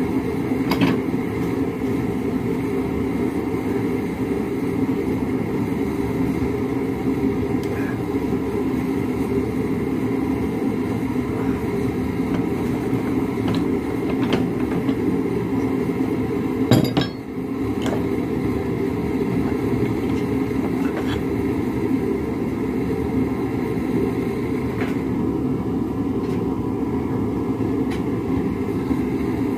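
Metal clinks and one sharp clank about 17 seconds in, as a wrench twists a heated railroad spike clamped in a steel bench vise, over a steady low roar of shop equipment.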